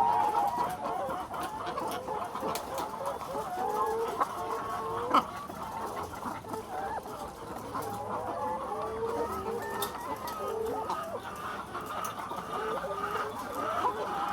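A flock of hens clucking, many short calls overlapping all the while. A single sharp click about five seconds in.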